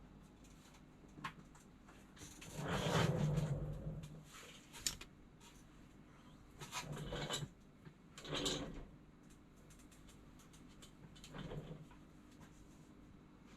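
Several brief rustling, scraping handling sounds with a couple of sharp clicks, as tools and parts are picked up and set down on a repair bench; the longest comes a few seconds in.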